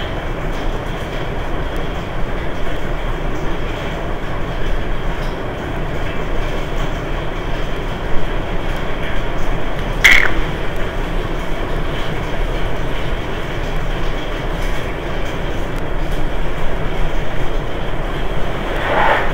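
Steady rumbling background noise, with a single sharp click about ten seconds in.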